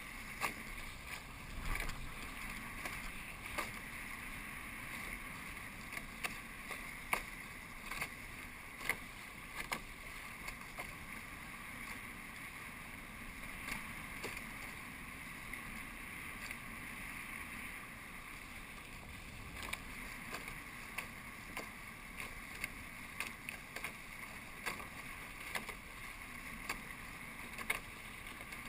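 Water rushing and hissing along the hulls of an A-class racing catamaran sailing upwind in a medium breeze, with wind on the microphone. Irregular sharp knocks and clicks come every second or so.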